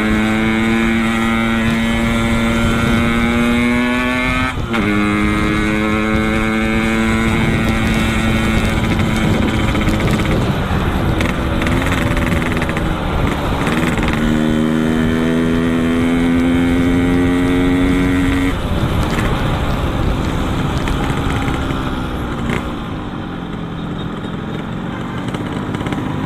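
Yamaha RX-King's 135 cc two-stroke single running through a Boban C33 aftermarket exhaust under way. The engine pitch climbs steadily in gear, drops at a gear change about five seconds in, climbs again later, then falls away as the throttle closes near the end, over steady wind and road noise.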